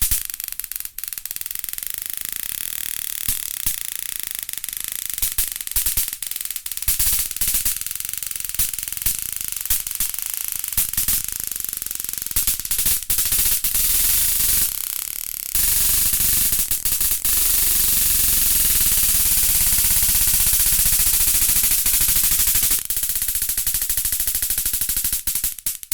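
Electrical crackling and arcing: rapid, irregular snaps of sparks over a hiss. About halfway through it changes to a steadier, louder electric buzz with a low hum, and near the end turns back to crackling.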